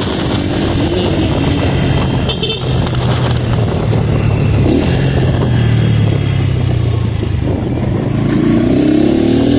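Honda Pop 110i's small single-cylinder four-stroke engine running steadily, its pitch climbing as it revs up near the end.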